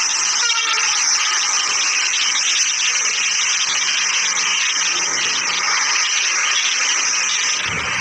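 Passenger coaches of a diesel-hauled express train passing close by at high speed: a steady rush of wheels on rails with a rapid ticking clatter. A deeper rumble joins near the end.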